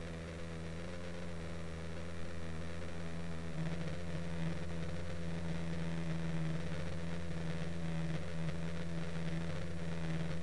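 Nitro two-stroke glow engine of an Align T-Rex 600 RC helicopter running steadily, heard close up from a camera on the frame; it gets a little louder from about three and a half seconds in.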